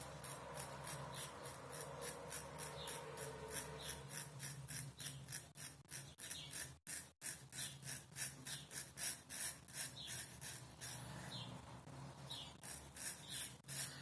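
Kamisori straight razor scraping through lathered stubble on the neck in quick short strokes, about three a second, with a short pause before the strokes resume near the end.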